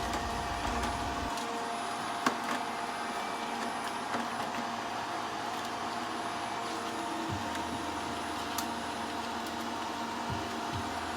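A small motor running steadily, with a constant whine, and a few light clicks and bumps over it.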